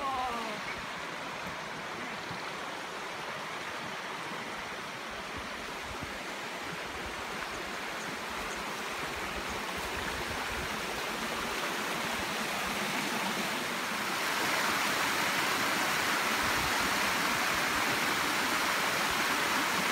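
Small creek cascades rushing steadily over rock slabs, a continuous splashing flow that grows louder about two-thirds of the way through.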